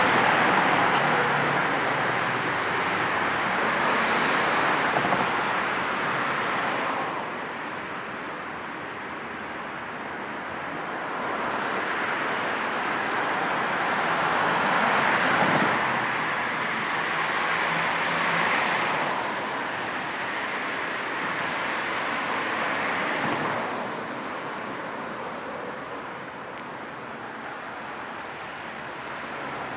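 Steady city road traffic: the hiss of cars passing one after another, swelling and fading as each goes by, with a quieter lull about a third of the way in and again near the end.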